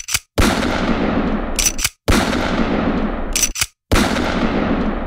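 Gunfire sound effect: three long bursts of rapid fire, each about a second and a half, coming about every two seconds and each preceded by a short click.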